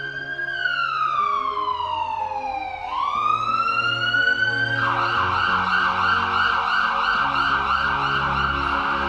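Emergency-vehicle siren: a slow wail falling and rising in pitch, which switches about five seconds in to a fast warbling yelp. Background music with low stepped bass notes plays underneath.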